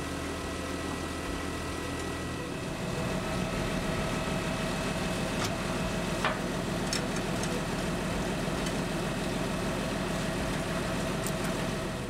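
A large diesel engine idling steadily. It grows a little louder about two and a half seconds in. A few faint metallic knocks come through as steel deck covers are set in place.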